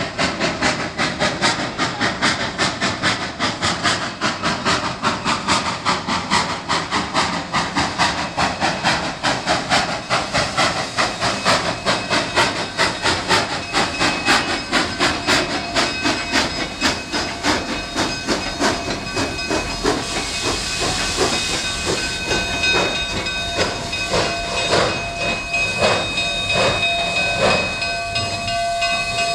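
Durango & Silverton K-36 steam locomotive No. 481 moving slowly past: exhaust chuffs over a steady hiss of steam, the chuffs spacing out as it slows. A steady high ringing tone comes in over the last few seconds.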